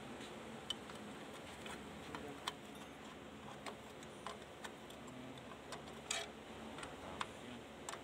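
Light, irregular clicks and taps of hand tools and small metal parts being handled during a repair, one or two a second, over a steady low hiss; one slightly louder knock about six seconds in.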